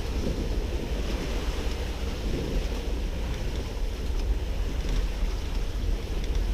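Steady wind rumble buffeting the microphone over the wash of water around a sailboat under way.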